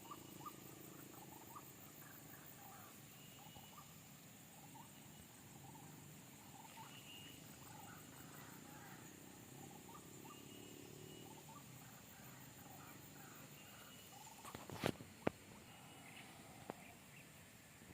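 Faint white-breasted waterhen calls: many short calls repeating irregularly. A few sharp clicks come about fifteen seconds in.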